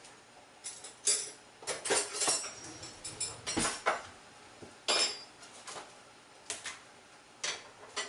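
Kitchen utensils and dishes being handled on a counter: a run of sharp, ringing clinks and clatters from about a second in, thinning out to a few single clinks near the end.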